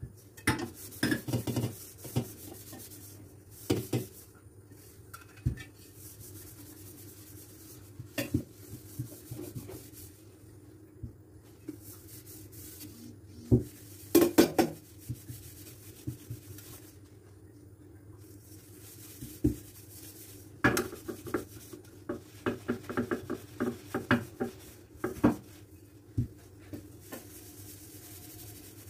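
Dishes and kitchenware being handled and set down: scattered clinks and knocks, bunched in short clusters.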